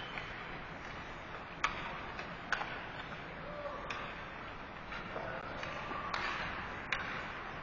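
Ice hockey practice sounds: a steady hiss of skate blades on the ice, with sharp clacks of sticks and pucks. Three clacks stand out: about one and a half seconds in, about two and a half seconds in, and near the end.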